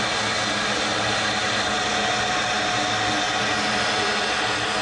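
Narrow-gauge steam locomotive standing close by, giving off a steady hiss with a low hum under it and no exhaust beats.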